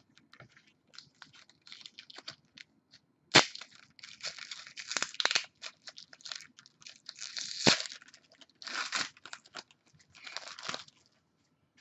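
A trading-card pack's foil wrapper being torn open and crinkled, with irregular crackling and two sharp snaps, the first about three and a half seconds in and the second near eight seconds.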